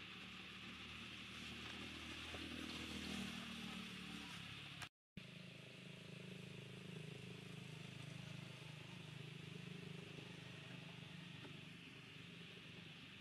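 Faint low hum of a motor vehicle engine running, over a steady outdoor hiss; the sound drops out completely for a moment about five seconds in.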